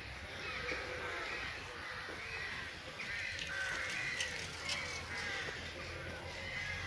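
A flock of birds calling over one another in a dense, continuous chorus of short calls.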